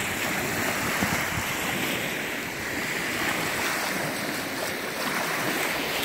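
Small wind-driven waves washing steadily onto a sandy river shore, with wind blowing.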